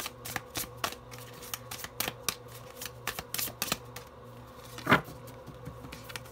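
A deck of tarot cards shuffled by hand: a run of irregular soft snaps and clicks as the cards slip against each other, with one louder snap about five seconds in.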